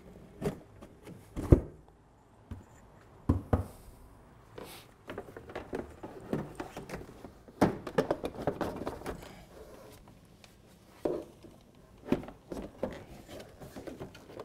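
Plastic body panels and seat of a Vectrix electric scooter being handled and pushed into place: a few sharp knocks and clunks, the loudest about a second and a half in, with scraping and rustling of plastic between them.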